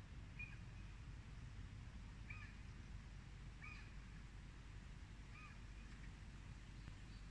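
A bird giving a short call four times, about every second and a half to two seconds, over a low steady rumble.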